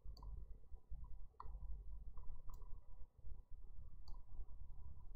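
A few faint, sharp clicks of a computer mouse, spaced irregularly about a second apart, over a low rumble.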